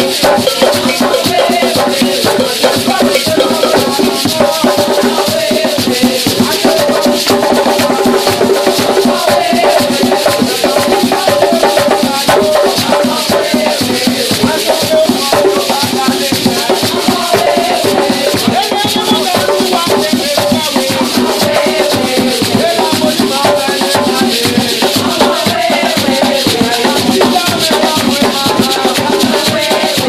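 Gwo ka music: hand-played ka drums beating a steady rhythm under gourd chacha shakers rattling continuously, with voices singing over it.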